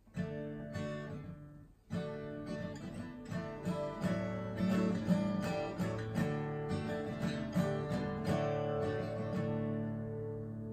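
Gibson J-45 cutaway steel-string acoustic guitar being played: a chord strummed at the start, another about two seconds in, then a picked chord passage with the notes left ringing.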